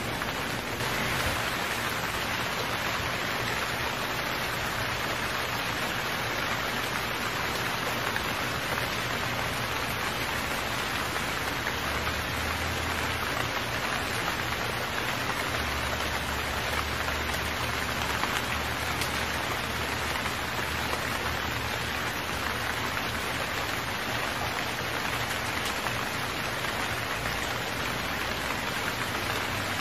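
Heavy rain falling steadily, an even hiss with no pauses.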